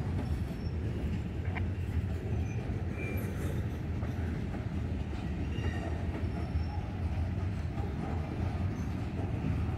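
Freight cars, covered hoppers and centerbeam flatcars loaded with lumber, rolling past with a steady low rumble of wheels on rail, and a few short faint high squeals from the wheels.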